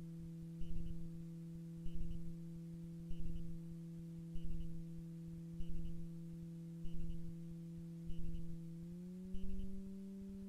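Super Petrel amphibian's engine running steadily at taxi power as a low hum, with a regular pulse about every second and a quarter. About nine seconds in, the pitch steps up as throttle is added to taxi up the ramp.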